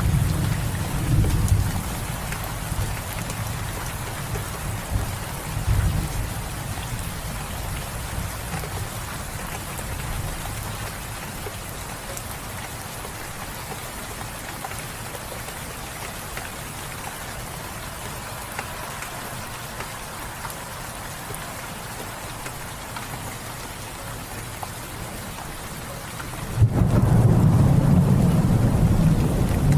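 Steady rain falling with rolling thunder. A low rumble dies away over the first several seconds. Near the end a loud thunder rumble sets in suddenly.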